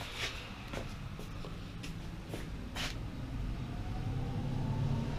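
A few light clicks and taps of a magnet being set against a piece of stainless steel bar stock, which it only weakly clings to, over a steady low hum.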